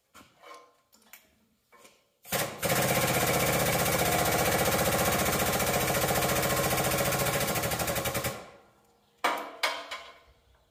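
Pump of a 30-ton hydraulic shop press running with a loud, rapid pulsing chatter for about six seconds, building pressure to press a bearing off a dozer final-drive part. It is preceded by light clicks and followed by two sharp knocks about a second later.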